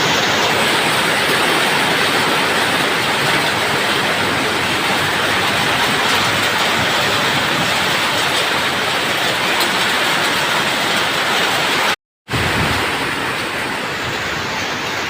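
Heavy rain pouring down steadily, a loud dense hiss. It cuts out for a moment about twelve seconds in, then carries on a little softer.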